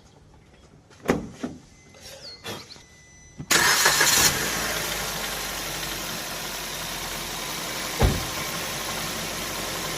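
Maruti Swift engine cranked and catching about three and a half seconds in, after a couple of sharp clicks, then settling into a steady idle. A single short low thump near eight seconds.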